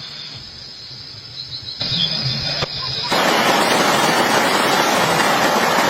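Faint insect chirping in a quick high series over a low hum, then about three seconds in a loud, even hiss of heavy rain sets in abruptly.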